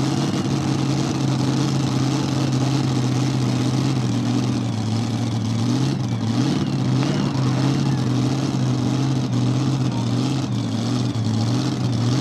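Supercharged, alcohol-fuelled engine of a super modified two-wheel-drive pulling truck running at a loud, steady idle, its pitch rising and dipping slightly now and then.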